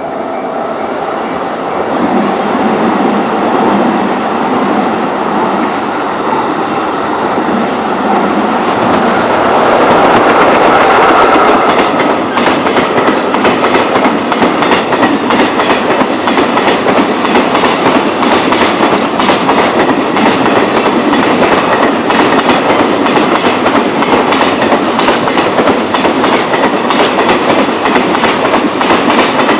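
Freight train passing close by: it grows louder over the first couple of seconds, the locomotive is loudest about ten seconds in, then from about twelve seconds the wagons' wheels clatter quickly and steadily over the rail joints.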